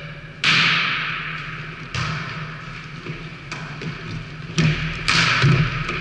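A volleyball being hit back and forth during a rally, about five sharp smacks that echo in a large sports hall, the first the loudest. A steady low hum runs underneath.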